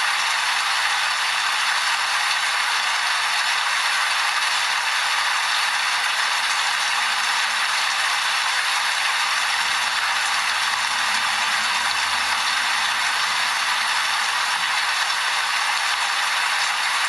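Steady rain falling: an even, dense hiss of drops at a constant level with no letup.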